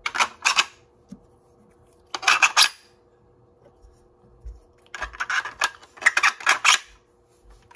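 Hard plastic clicking and clattering from a 3D-printed foam-dart shotgun blaster and its shells being handled, in four short bursts of several clicks each: one at the start, one about two seconds in, and two close together about five to seven seconds in.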